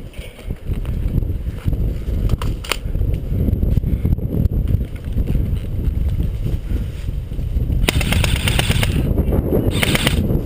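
Airsoft guns firing: a couple of single shots, then two rapid full-auto bursts near the end, over a steady low rumble of wind on the microphone.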